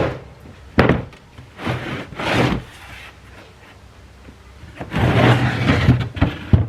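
Unboxing handling of a heavy socket set in its cardboard box: a few sharp knocks and thunks, with stretches of scraping and rubbing in between.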